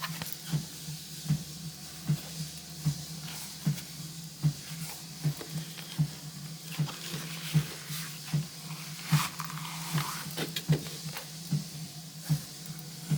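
Handling rustle and small clicks from a leather notebook cover being turned and handled, over a soft low thump repeating evenly about every three-quarters of a second.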